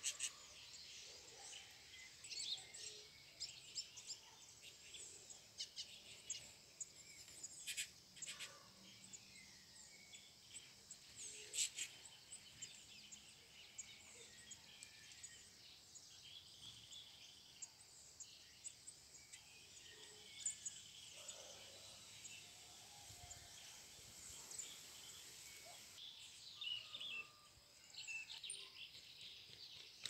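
Faint outdoor ambience with scattered short, high chirps of small birds over a low steady hum, and a couple of sharper clicks about 8 and 12 seconds in.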